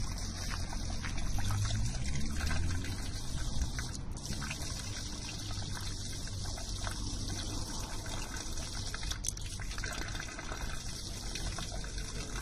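Outdoor drinking-fountain tap left running, a thin stream of water falling and splashing steadily into the stone fountain's basin and drain grate.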